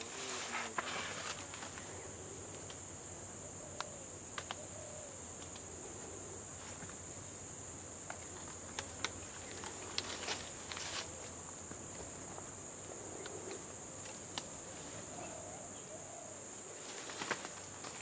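A steady high-pitched insect drone with scattered snaps and crunches of footsteps through undergrowth, coming more often near the end.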